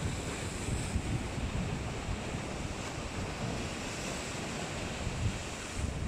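Sea surf washing and breaking over rocks, a steady rush of foaming water, with wind buffeting the microphone in low irregular gusts.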